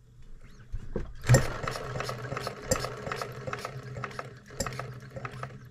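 Model hot bulb engine turned over by a hand flip of its flywheel, clicking and clattering at about three beats a second as it coasts without catching. The engine is flooded and the fuel has just been shut off to clear it.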